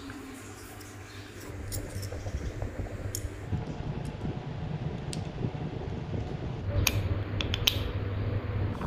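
Small electric motors of a DIY model motorcycle running with a steady low hum that grows stronger about three and a half seconds in, with several sharp metallic clicks, a few close together near the end.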